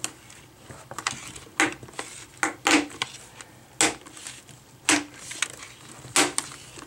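Plastic screen bezel of an ASUS X551M laptop being pried off by hand, its snap-fit clips letting go in a string of sharp clicks and snaps, roughly one a second, as the bezel comes free of the display lid.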